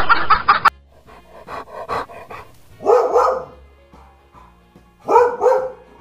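Chicken clucking that cuts off suddenly just under a second in, then a dog barking: one bark about three seconds in and two quick barks near the end, over soft background music.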